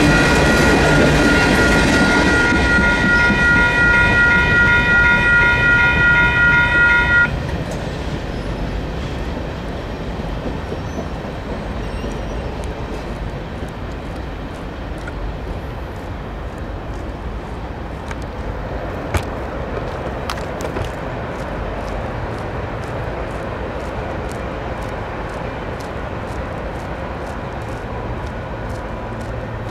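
Freight cars rumbling over the crossing while two WCH electronic crossing bells ring; the bells cut off abruptly about seven seconds in, the sign that the train has cleared and the gates are rising. A quieter steady rumble of the train moving away follows, with one sharp click near the middle.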